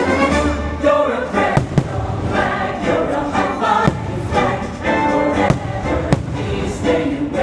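Fireworks show soundtrack: choir singing over orchestral music, with about five sharp firework bangs cutting through it.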